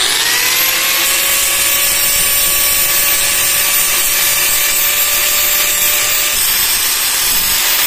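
Hitachi angle grinder starting up, its whine rising and settling right at the start, then running at a steady pitch. A screwdriver's steel shaft is ground to a point against the disc, adding a steady grinding hiss.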